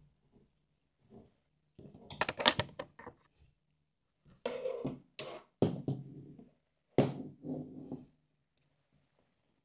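Small drone parts and the drone frame being handled on a rubber workbench mat: three short bursts of clattering clicks and knocks.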